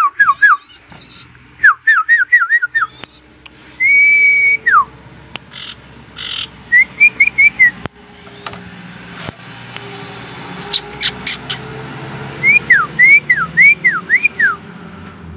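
Sirtu songbird song: bursts of quick, clear down-slurred whistles, with one long held whistle about four seconds in that drops at its end. A few sharp clicks come near the middle.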